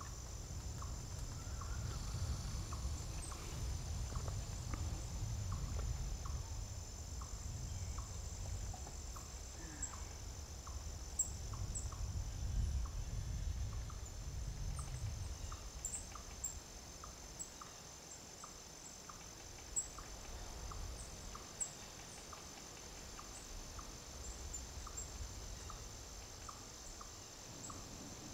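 Forest ambience: a steady high insect trill with a regular chirp repeating about every half second, over a low rumble that eases off about halfway through.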